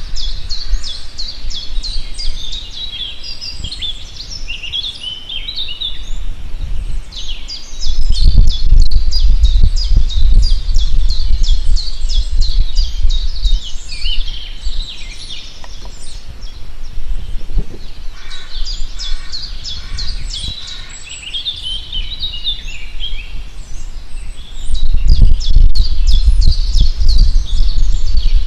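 A chorus of wild birds chirping and singing continuously, with one bird repeating a short series of lower notes about two-thirds of the way through. A loud low rumble comes in about eight seconds in, fades after several seconds, and returns near the end.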